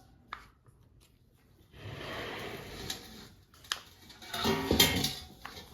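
A cup of palm oil poured into a container of oil, in two pours, with a few light knocks of the cup against the container.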